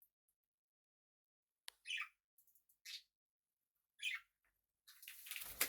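Pet parrots calling: a few short chirps about two, three and four seconds in, then a longer, harsher squawk near the end.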